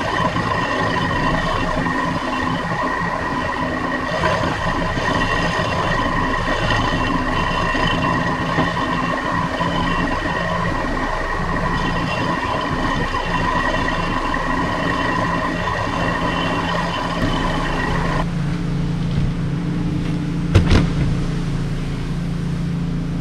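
Vertical milling machine running, its end mill facing a broken bolt stub and set screw down flush with a Yamaha Road Star 1700 cylinder head: a steady whine over a continuous cutting rasp. About three-quarters of the way through it stops abruptly, leaving a low hum and a single sharp knock.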